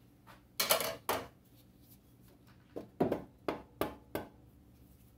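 Hammer tapping on the water pump housing to break it loose from its gasket: two sharp taps about a second in, then five more in quick succession a few seconds later.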